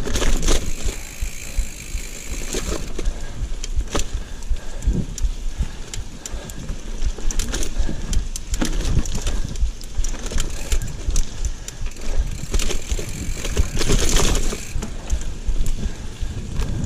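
Giant mountain bike ridden over a dirt trail: tyres crunching on the ground, with frequent clattering and rattling of the bike over roots and bumps and a steady low rumble throughout.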